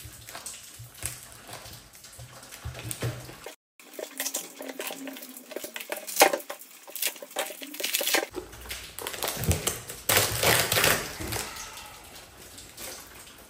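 Plastic vacuum-bag film and white infusion mesh being pulled and peeled off a resin-infused carbon fiber layup: crinkling and tearing in irregular bursts of crackles and rasps.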